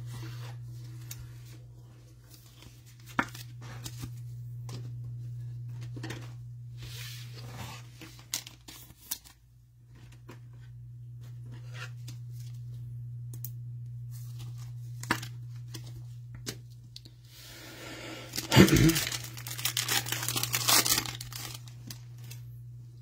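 Trading cards being handled and slid past one another in nitrile-gloved hands, with scattered soft clicks and rustles of card stock. About 18 seconds in comes a louder crinkling rustle lasting a couple of seconds.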